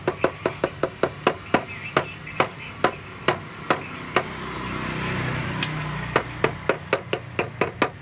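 A used metal-cased diesel fuel filter rapped repeatedly against an old spin-on filter canister over a drain pan: sharp metallic knocks, two to three a second, that thin out in the middle with a short pause and quicken again near the end. The filter is clogged black, like coal, with deposits.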